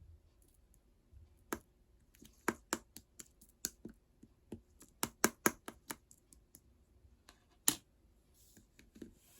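Orange slime being scooped and mixed with clay by hand, giving irregular sharp clicks and pops, some in quick runs, with a soft squishy hiss near the end.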